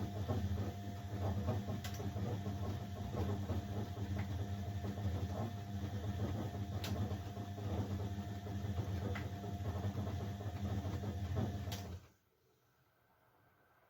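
Old Blomberg 240W washing machine running: a steady motor hum with a crackly rattle over it, which cuts off suddenly about twelve seconds in, as the drum stops between turns of the wash.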